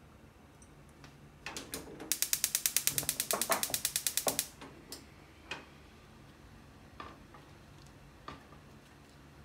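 Gas stove burner's spark igniter clicking rapidly, about ten clicks a second for a couple of seconds, then stopping. A few soft knocks follow as zucchini slices are set into the frying pan.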